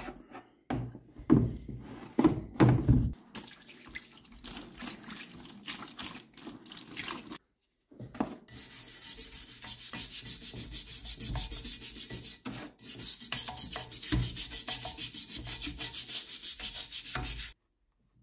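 Heavy cast-iron hand-press frame knocked and shifted about in a plastic tub, then scrubbed wet with a stiff brush in fast, even back-and-forth strokes, about four a second.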